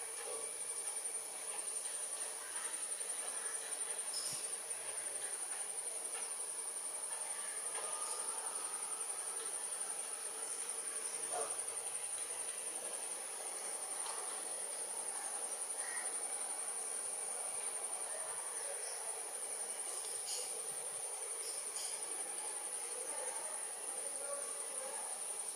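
Continuous high-pitched insect trill, steady and unbroken.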